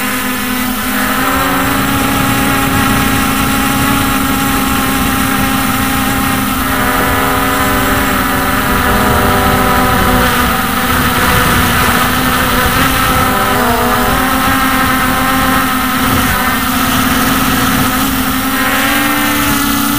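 Hubsan X4 H501S quadcopter's brushless motors and propellers whining in flight: several steady tones at once, which slide past one another about two-thirds of the way through as the motor speeds change.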